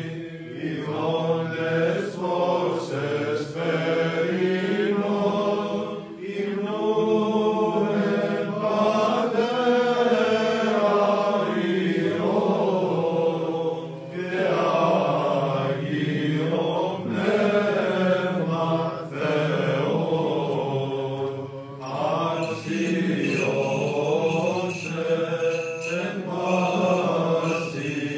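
Byzantine chant: a male cantor sings a melodic Greek Orthodox hymn line in long held notes over a steady low drone, the ison.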